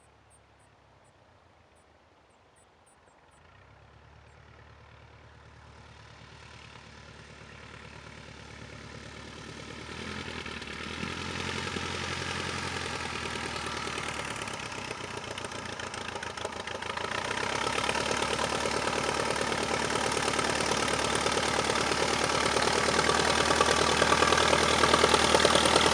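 A Tiger Moth biplane's four-cylinder inline engine running at low taxiing power with an even firing beat. It starts very faint and grows steadily louder as the plane approaches, until it is loud and close near the end.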